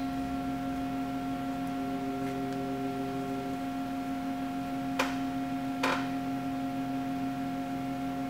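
A steady background hum made of several held tones, with two short clicks a little under a second apart a little past the middle, from parts being handled on a workbench.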